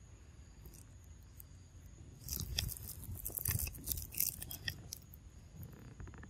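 A burst of scratchy rustling, scraping and crackling starting about two seconds in and running for roughly three seconds, over faint forest background.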